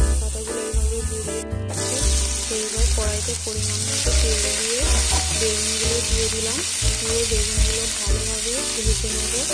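Eggplant pieces frying in hot mustard oil in a wok, an even sizzle that starts suddenly about two seconds in as they go into the oil. Background music plays throughout.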